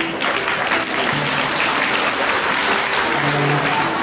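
Audience applauding, with music playing quietly underneath.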